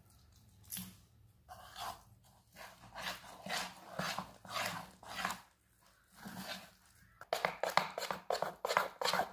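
Spoon beating besan (gram-flour) batter in a bowl: rhythmic wet stirring strokes, slow and spaced at first, then faster and louder from about seven seconds in as the flour turns into smooth batter.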